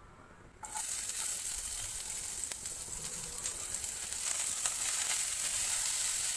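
Chopped onion, green chillies and herbs hitting hot oil in a pan: a sudden sizzle starts about half a second in and goes on as steady frying with small crackles while tomatoes are tipped in.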